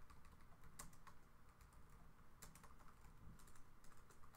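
Faint typing on a computer keyboard: scattered, irregular key clicks as a line of text is entered.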